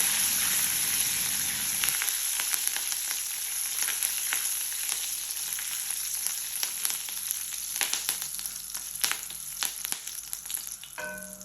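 Curry leaves frying in hot oil in an iron kadai: a steady sizzle with many sharp crackling pops, slowly dying down.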